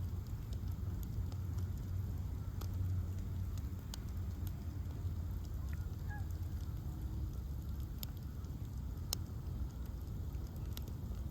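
Bonfire of ash logs burning: a steady low rumble of flames with scattered sharp crackles and pops, a few louder ones about four, eight and nine seconds in.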